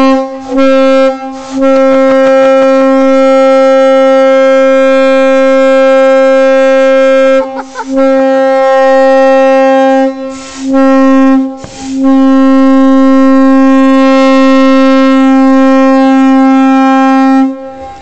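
Train horn blown in a series of loud blasts on one steady pitch: a few short blasts, then two long ones of about six seconds each, with brief breaks between.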